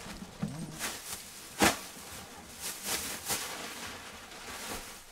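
Rubbish being handled during a clear-out: a series of short rustles and knocks, the loudest about a second and a half in.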